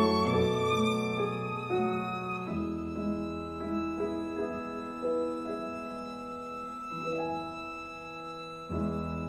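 Slow instrumental music on violin and piano. A held note slides upward at the start, then sustained chords change every second or two and slowly grow softer, with a fresh chord near the end.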